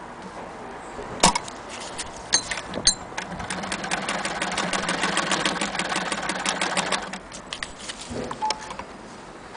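Singer 99K hand-crank sewing machine stitching through denim: a run of rapid, even clicking that lasts about four seconds, after a few sharp single clicks from about a second in.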